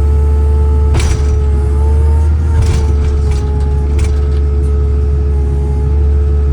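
Takeuchi TL12 tracked compact loader's Kubota diesel running steadily under working load, with a steady whine that rises briefly about two seconds in. Three sharp knocks, about one, two and a half, and four seconds in, come from the machine as it works the bucket in topsoil.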